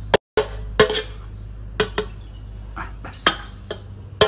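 Metal ladle clanking and scraping against a large metal cooking pot and serving tray as cooked rice is scooped out, a ringing clank every half second or so. The sound cuts out for a moment just after the start.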